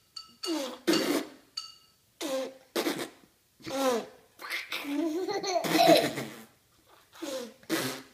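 A small child and an adult making silly vocal noises and laughing in short bursts, with one longer drawn-out noise about five seconds in.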